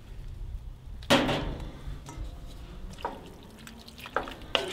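A loud clunk about a second in, then a few light knocks of a wooden spoon against a cast-iron Dutch oven as the meat, vegetables and red wine in it are stirred.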